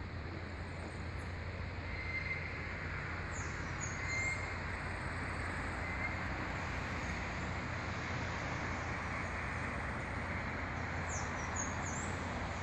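Steady outdoor background hum of distant road traffic, with a few short high bird chirps around three to four seconds in and again near the end.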